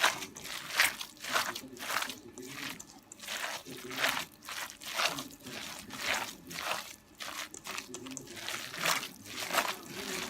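Gyoza being prepared by hand: a run of short, moist crunching strokes, about two a second.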